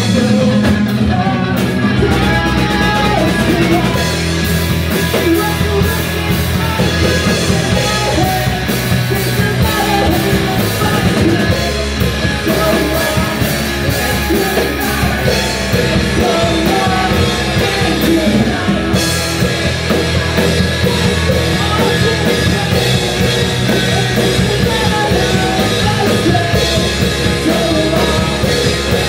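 Live punk/emo band playing a song: sung lead vocals over distorted electric guitar, electric bass and a drum kit.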